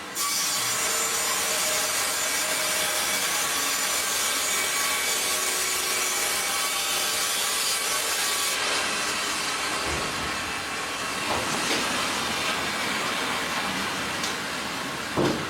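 MEBOR HTZ 1200 Plus horizontal bandsaw cutting through a log: a steady sawing noise that starts abruptly. About halfway through, its highest hiss drops away, and a short knock comes near the end.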